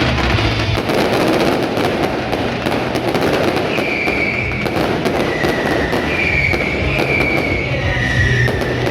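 Fireworks going off in a dense, continuous crackle of rapid pops, with music underneath.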